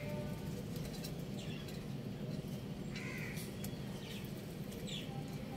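Bird calls: two harsh calls about three seconds apart and a few short rising chirps, with sharp clicks, over a steady low hum.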